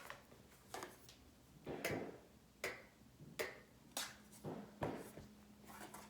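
Faint, irregular clicks and light rustles, roughly one every half second to second, as of small objects being handled and set down.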